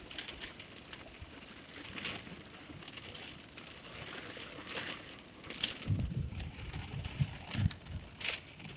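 Thunderstorm heard from inside a van: irregular crackling taps and short bursts of hiss, with a low rumble of thunder from about six seconds in.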